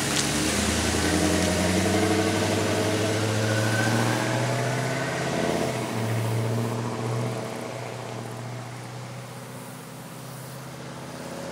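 1999 Chevrolet Silverado 2500's 6.0-litre LQ4 V8 exhaust, running through a Summit Racing dual-chamber muffler on a 3-inch Y-pipe, accelerating as the truck pulls away. The exhaust note fades as it drives off.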